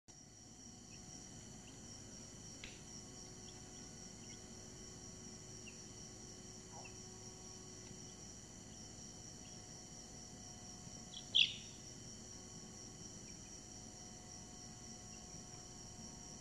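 Week-old chicks peeping now and then in short, high chirps, with one much louder peep about eleven seconds in, over a steady high-pitched whine.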